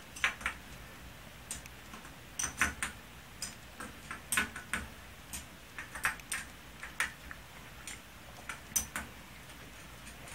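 Hex driver running down the cylinder-head screws of an O.S. 91HZ model glow engine: irregular light metallic clicks, often two or three close together.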